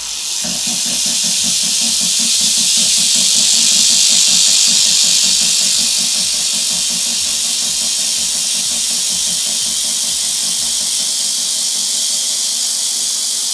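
Handheld fibre laser welder with wire feed laying a continuous weld: a loud, steady hiss with a faint, evenly pulsing hum underneath.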